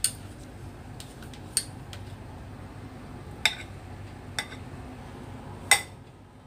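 Metal spoon clinking against a ceramic bowl and dishes: five sharp clinks spaced a second or two apart, the loudest near the end, over a low steady hum.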